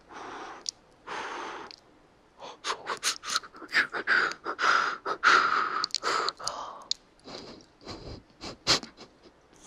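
A man making close-up mouth and breath sounds into a binaural ear microphone, mimicking a pot of doenjang stew on the boil: two short blown breaths, then a run of wet mouth clicks and pops over a hiss, tailing off into a few last clicks.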